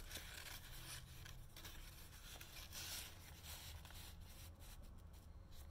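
Faint rustling and sliding of paper as a journaling card is pulled from a paper pocket in a handmade junk journal and handled, with a few soft ticks of paper near the end.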